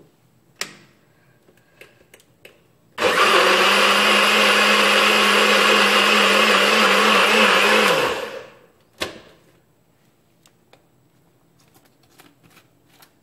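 Bullet-style personal blender running for about five seconds while pressed down, blending avocado with milk: the motor starts abruptly and its pitch drops as it spins down on release. A sharp click shortly before it starts and another just after it stops.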